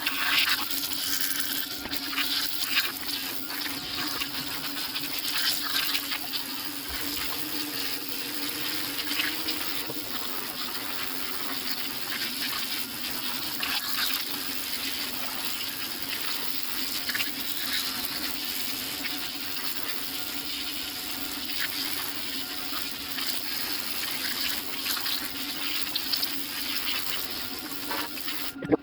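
Steam cleaner spraying in a steady hiss of steam and water, with a constant hum underneath, cleaning oily grime off the engine around the rear main seal.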